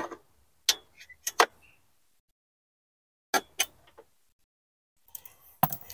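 Short metallic clicks and taps in two small clusters, a magnetic pickup tool knocking against the steel dashboard frame and bolt as it is worked into a bolt hole to fish out a dropped screw. More small clicks and handling noise come near the end.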